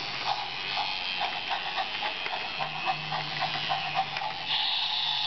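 Battery-powered toy train running, its small electric motor buzzing with rapid clicking as it moves. A higher steady tone joins about four and a half seconds in.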